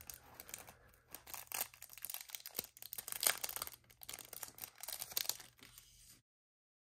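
Packaging of a die-cast model car being unwrapped and handled: a dense run of crinkling and crackling that stops abruptly about six seconds in.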